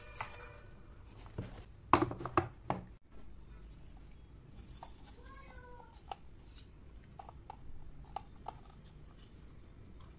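Small wooden miniature furniture being handled: a quick cluster of louder wooden knocks about two seconds in, then scattered light clicks as the tiny cabinet doors of a miniature kitchen island are opened and closed.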